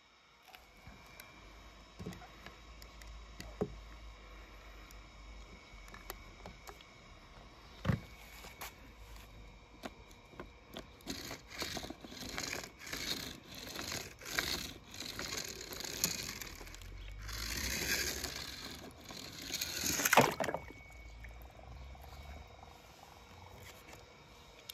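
Toy monster truck's plastic wheels rolled back and forth through wet paint on paper, a run of short scrapes and rustles, after a few light clicks as the toys are handled.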